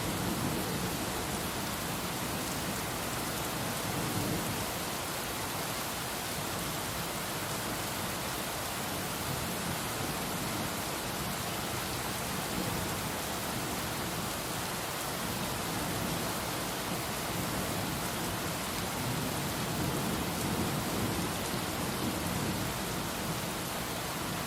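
Heavy rain pouring steadily, an even hiss of drops with a fuller low rumble underneath.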